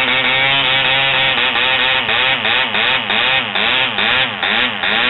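Spanish-made model airplane diesel engine running at high speed on a test stand. Steady at first, then about a second and a half in its speed starts surging up and down about three times a second, hunting rather than holding an even speed.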